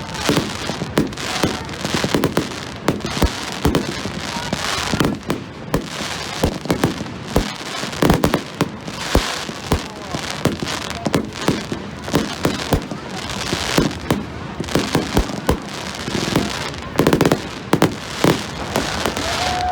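A fireworks display: a dense, unbroken run of shell bangs and crackling pops, several a second.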